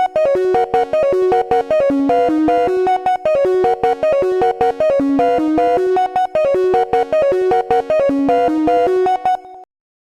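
Background music: a bright, plucky melody in quick, regular notes that cuts off about a second before the end, followed by silence.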